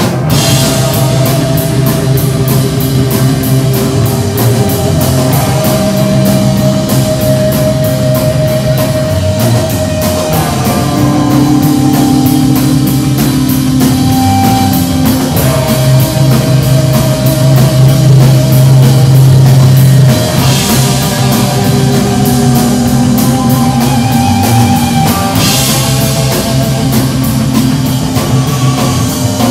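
A rock band playing live and loud: a drum kit keeps a steady beat with cymbals under electric guitars holding long notes.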